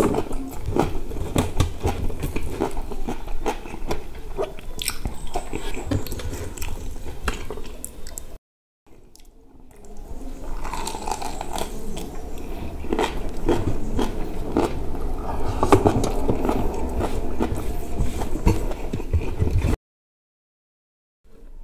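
Close-miked chewing and biting of rice, crispy fried chicken and boiled okra eaten by hand. The sound cuts out to silence twice, briefly.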